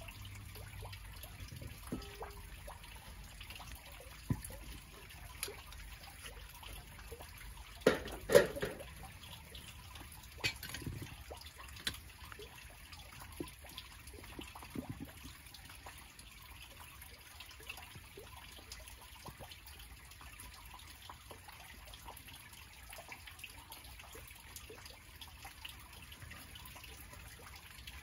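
Quiet background with scattered small clinks and a few louder knocks, the loudest about eight seconds in, from steel lifting tongs and a crucible being handled while molten aluminium is carried to the casting mould.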